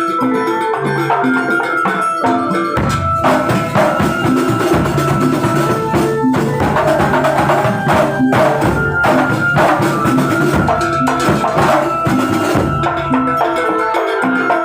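Kuntulan percussion ensemble playing a continuous piece: dense drumming over short pitched notes repeating in a regular pattern.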